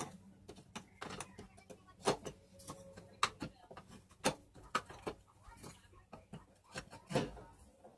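Steel chisels clinking against one another and knocking into the slots of a wooden chisel rack as they are picked up and set in: about a dozen sharp, irregular clicks and knocks.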